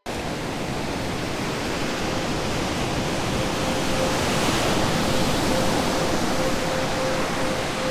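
Ocean surf breaking on rocks: a steady rush of water that starts abruptly, with a faint steady tone coming in about halfway through.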